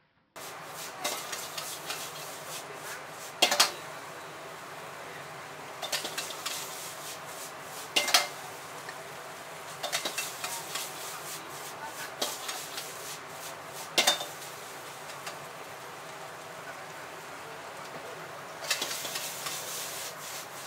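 Metal ladle scraping and clanking against a wok while stir-frying noodles over a gas burner, with a steady sizzle and flame hiss underneath. Sharp clanks come about every two seconds, and a denser burst of sizzling and scraping comes near the end.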